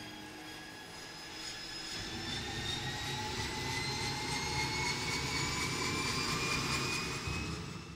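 Single-engine turboprop of a Cessna 208 Grand Caravan running as the plane taxis: a turbine whine that slowly rises in pitch over a throbbing propeller beat. The sound grows louder over the first few seconds, then holds steady.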